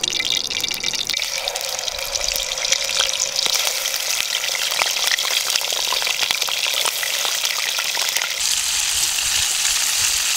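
Pieces of mutton liver sizzling in a hot aluminium pot over a wood fire: a steady hiss full of small pops, growing stronger about eight seconds in.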